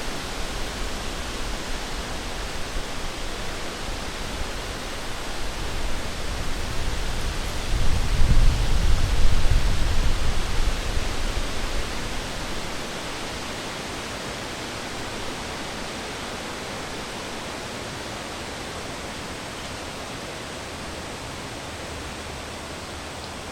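Wind blowing through a forest: a steady rush that swells into a stronger gust with a deep rumble about eight to eleven seconds in, then eases back to a steady, slightly quieter rush.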